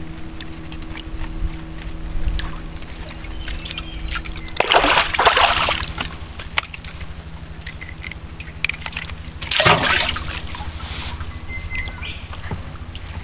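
Water sloshing and splashing, with two louder splashes about five and ten seconds in, over a steady low hum.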